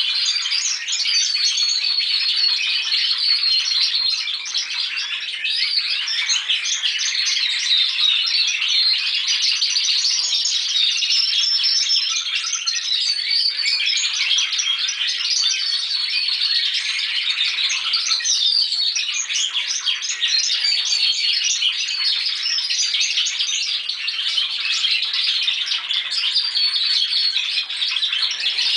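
Several young Timbrado Español song canaries singing together in a continuous chorus of rapid trills and chattering repeated notes, with some held whistled notes. These are juvenile males rehearsing their song.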